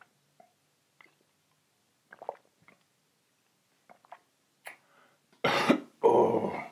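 Faint chewing and mouth sounds from a man eating, then two loud coughs in quick succession about five and a half seconds in.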